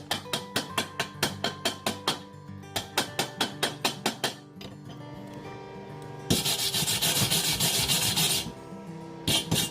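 Rapid, even scraping strokes, about five a second, in two runs, then a loud steady hiss lasting about two seconds, with a shorter burst of it near the end. Background music plays underneath.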